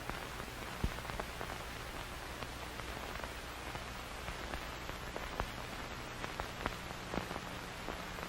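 Underwater ambience recorded by a dive camera: a steady hiss with scattered sharp clicks and crackles.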